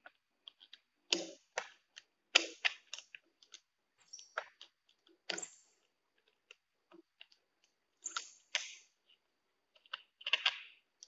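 Pliers working the nut and screws of a ceiling-fan wall switch: irregular clicks and short scrapes of metal tool on metal and plastic as the fastener is gripped and turned.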